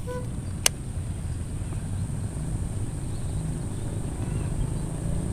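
Steady low rumble of wind buffeting the microphone, with a single sharp click less than a second in and a brief tone at the very start.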